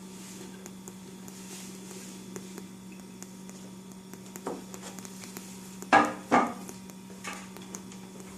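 Hard objects knocked and set down on a surface: a light knock, then two loud knocks close together about six seconds in, and a lighter one after, over a steady electrical hum.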